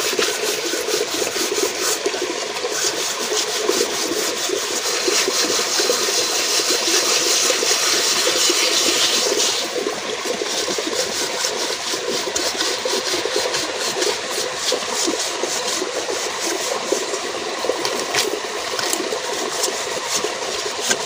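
A soot-blackened metal cooking pot being scoured by hand with a wad of grass and leaves: continuous scraping and rubbing strokes against the metal, louder and hissier for several seconds near the start.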